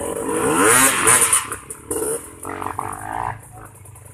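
Dirt bike engine revving hard close by, its pitch rising and falling, loudest in the first second and a half and then dropping back to lower, uneven revs.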